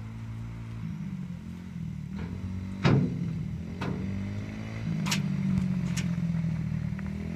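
Yamaha TT-R90's small four-stroke single-cylinder engine running as the bike is ridden, its pitch rising and falling with the throttle and growing louder toward the end. A few sharp clicks cut through it, the loudest about three seconds in.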